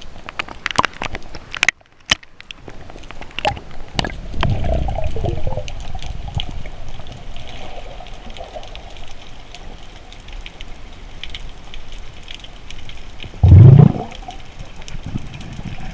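Water sloshing and gushing around the camera in shallow sea water, with scattered sharp clicks in the first few seconds and one short, loud gush near the end.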